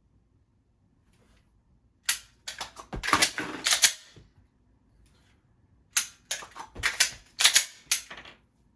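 Glock pistol being handled in dry-fire reload drills: two quick runs of sharp plastic-and-metal clicks and clacks of magazines being swapped and seated and the slide racked, the first about two seconds in and the second about six seconds in.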